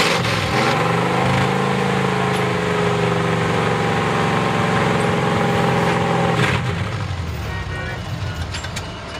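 V8 engine of a square-body Chevy mud truck on open headers, revving up and held steady at raised speed for several seconds, then dropping away sharply about six and a half seconds in.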